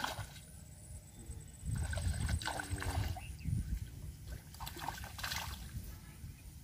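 A hooked fish thrashing at the surface of shallow, weed-choked water, splashing and sloshing in several short bursts.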